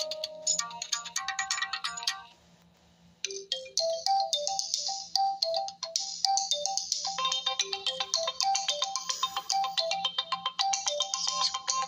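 Oppo A7 smartphone ringtones. One electronic ringtone melody ends about two seconds in, and after a second's pause the next ringtone starts, a quick repeating pattern of short high notes.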